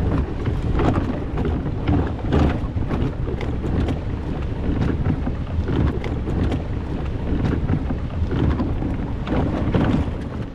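Wind buffeting the microphone aboard a moving boat, a dense rumble with irregular knocks and water splashes, cutting off suddenly at the end.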